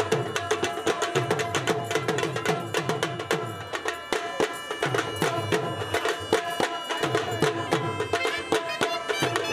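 South Asian folk dance music: fast, dense dhol drumming over a steady held melodic line, in a driving rhythm for a dancing horse.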